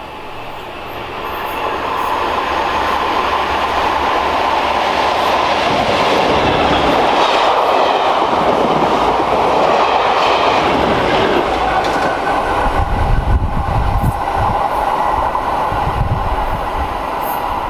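A train of coaches, top-and-tailed by two Class 37 diesel locomotives, running through the station: the rumble and rattle of wheels on rail build over the first two seconds, hold loud while the coaches pass, and give way to lower, uneven rumbling near the end as the train draws away.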